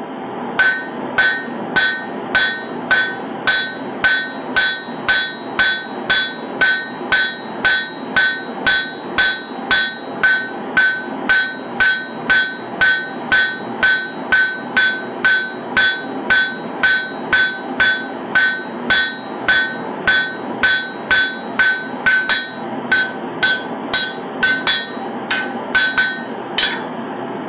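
Hand hammer striking a red-hot katana blade on a steel anvil, forging the blade's bevels: steady blows about two a second, each with a bright metallic ring. Near the end the blows become uneven, then stop. A steady machine noise runs underneath.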